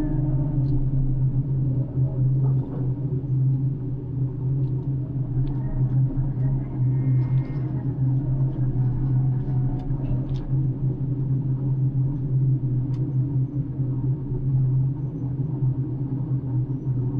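Floating crane's engine running with a steady low drone, heard from inside the operator's cabin, with a few faint clicks and brief higher tones over it.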